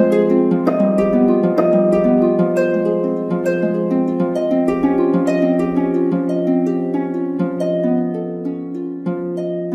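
Soft background music of plucked string notes, each ringing and dying away, growing gradually quieter toward the end.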